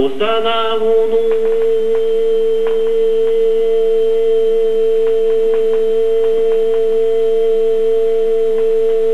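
Male voice chanting a waka poem in the slow traditional hikō style of the Imperial New Year poetry reading. A few quick syllables are followed, about a second in, by one long vowel held on a single steady pitch.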